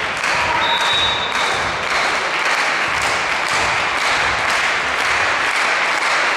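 Crowd noise in a volleyball hall, with regular thumps about twice a second, and a short referee's whistle about a second in signalling the serve.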